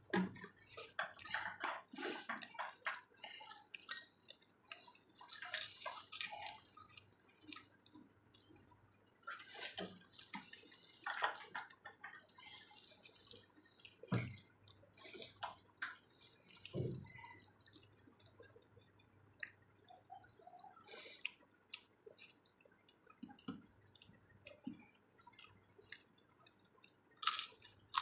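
Close-up eating sounds: wet chewing and squelching of rice mixed with sour dal, with many short, irregular clicks and crackles.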